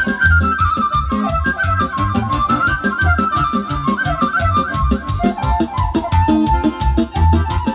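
Frula, the Serbian shepherd's flute, played into a microphone: a fast, ornamented folk melody over a steady bass beat. The tune drops lower about five seconds in.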